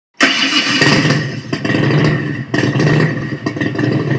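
A motorcycle engine running and revving, loud and cutting in suddenly, its level rising and falling throughout.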